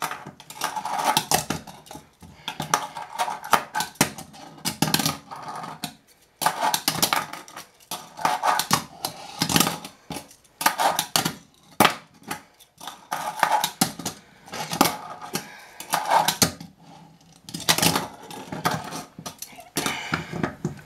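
29 mm Tech Deck fingerboard being ridden on a countertop and over a plastic sign obstacle: irregular sharp clacks of the board and trucks hitting the surface, with short scrapes of the metal trucks grinding along the obstacle's edge.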